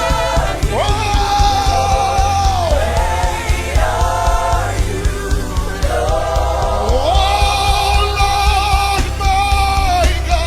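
Live gospel worship music: a band with a steady bass and drum beat under singing that slides up into long held notes, twice.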